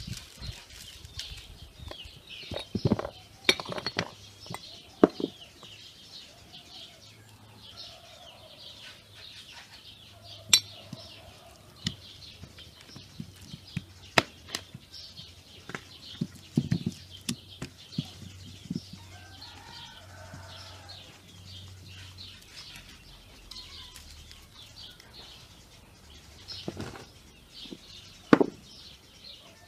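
Bone-in pieces of ram meat being worked with salt by hand in a plastic bowl, with scattered knocks and clinks as the bones and bowl are moved. Small birds chirp throughout, with a few lower farmyard animal calls.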